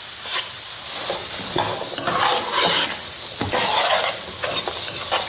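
Spatula stirring fried beef pieces into a thick sizzling masala in a pan, with repeated scraping strokes over a steady frying sizzle.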